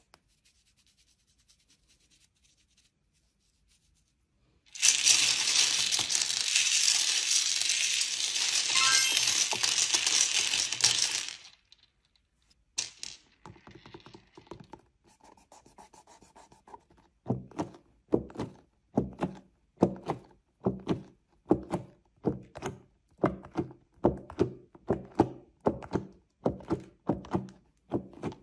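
A loud rushing hiss lasting about six seconds. Then, after a pause, a steady run of dull thuds, about three every two seconds.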